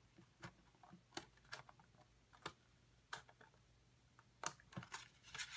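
Small scissors snipping short cuts into cardstock: faint, irregular crisp snips, roughly one or two a second.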